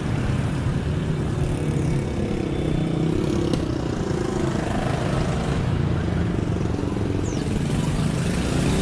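Motor vehicle engine running close by, steady with small shifts in pitch, over general street traffic noise.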